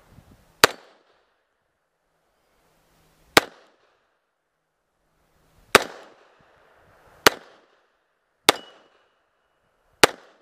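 Six single pistol shots fired one-handed at steel targets, spaced irregularly one to three seconds apart. A steel plate gives a short ring after the fifth shot.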